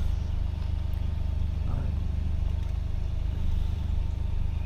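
Chevrolet Colorado pickup's engine idling, a steady low hum heard from inside the cab.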